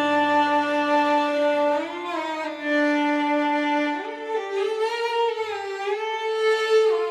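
Solo violin playing a slow, sad melody of long held notes, with a low sustained bass note that fades out a few seconds in.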